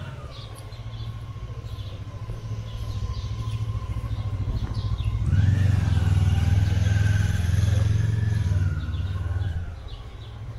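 Motor vehicle engine running close by on the street, a low rumble with a faint whine that grows louder about five seconds in and eases off near the end.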